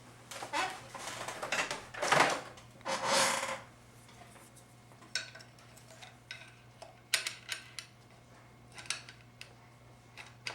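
Small metal hand tools clinking and scraping against the parts of a 4L60E transmission's input drum: a busy stretch of rattling and scraping in the first three and a half seconds, then scattered light metallic clicks.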